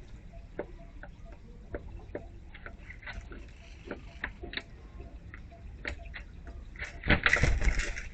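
Irregular light ticks and taps throughout, with a short burst of water splashing about seven seconds in.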